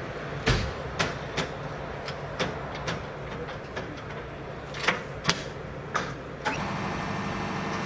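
Irregular sharp knocks and clanks from tools worked against the metal frame of an overturned truck trailer, about ten in six seconds. They stop abruptly and give way to a heavy engine running steadily.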